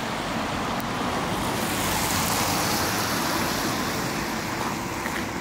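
Outdoor road traffic noise, a steady rush that swells about two seconds in and then eases off, as of a vehicle passing.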